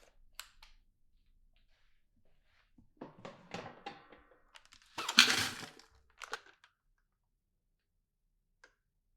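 Plastic clicks, scrapes and thunks of a Dyson V15 Detect cordless vacuum's wand and clear bin being handled and released. The loudest is a clattering burst about five seconds in.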